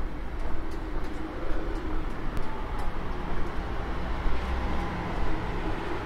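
City street ambience: a steady low rumble of vehicle traffic.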